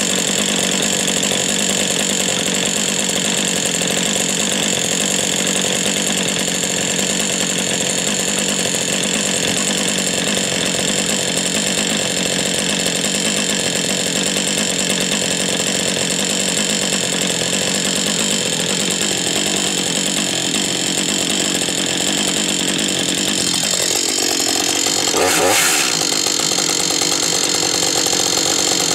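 Husqvarna 562 XP X-Torq two-stroke chainsaw idling steadily, with a brief blip of throttle near the end.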